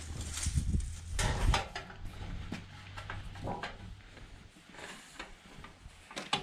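Light, scattered knocks and scrapes of sheet-metal siding corner trim being handled, with a sharp click near the end.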